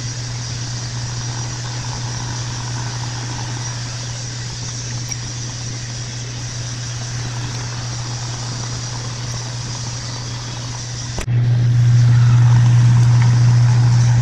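Metal lathe running, drilling into a metal workpiece with a large twist drill: a steady motor hum with cutting noise over it. It jumps suddenly louder about three-quarters of the way through and stays louder.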